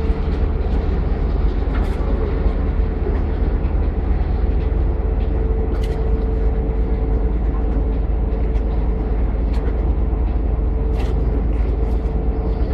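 A boat's engine runs steadily as a deep rumble with a steady mid-pitched hum over it, with a few faint clicks.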